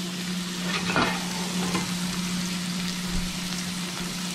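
Shrimp frying in hot oil in a pan, a steady sizzle over a constant low hum, with a light click about a second in.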